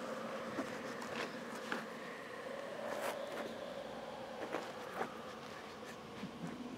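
A fly buzzing continuously, its pitch wavering slightly as it moves about, with a few faint scattered clicks.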